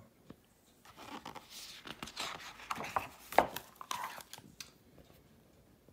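A page of a picture book being turned by hand: paper rustling and sliding for about four seconds, with several sharp crackles, the loudest about three and a half seconds in.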